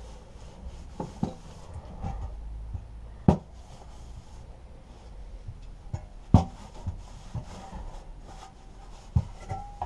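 Rubbing of a wet wipe over a lawnmower engine's recoil starter housing as it is cleaned, with a few sharp knocks as the metal part is handled and set against the wooden table, the loudest about three and six seconds in.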